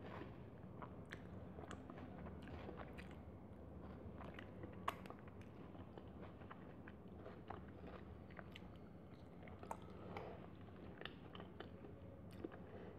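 Faint, close-miked chewing and mouth sounds, with many small scattered clicks, of rice and curry being eaten by hand.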